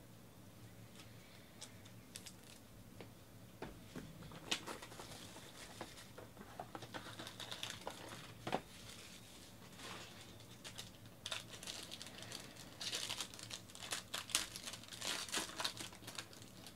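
Hands opening a trading-card box and tearing open its foil pack. Scattered clicks and rustles come first, then crinkling and tearing of the foil wrapper, busiest in the last few seconds.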